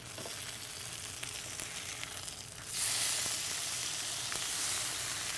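Honey-barbecue-glazed salmon fillets sizzling in a hot ridged grill pan. The sizzle jumps louder about halfway through as a fillet is flipped onto its uncooked side.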